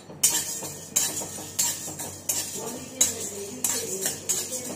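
Flat metal spatula stirring and scraping dry chana dal and dried red chillies around a dry metal kadai, the dal rattling against the metal. The strokes come about every two-thirds of a second.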